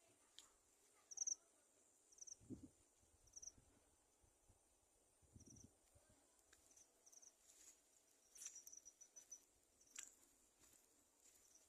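Near-silent background with faint, short, high-pitched cricket chirps repeating at irregular intervals, a brief trill about three-quarters of the way in, and a few soft clicks.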